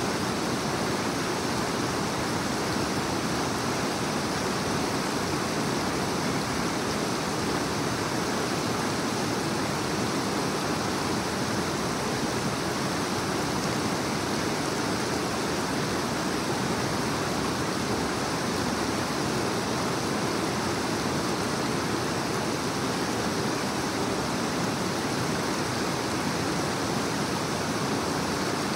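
A creek running fast over rocks: a steady, unbroken rush of white water.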